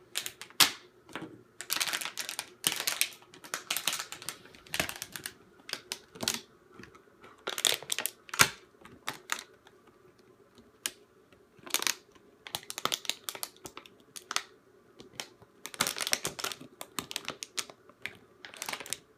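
A dog chewing a plastic water bottle: irregular bursts of crackling and crunching plastic, broken by short pauses.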